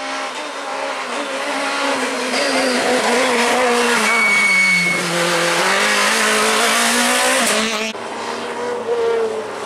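Peugeot 208 rally car's engine at high revs, growing louder as it approaches. Its pitch drops about five seconds in as it slows, then climbs again as it accelerates away, with a short high squeal just before the drop. It cuts off suddenly near the end to a quieter engine of another rally car.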